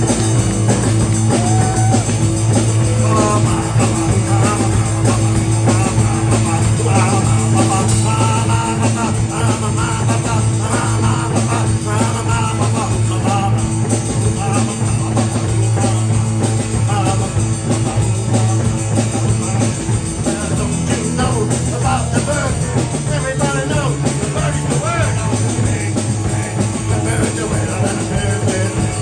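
Live surf rock band playing, with electric guitar and singing over a steady bass line.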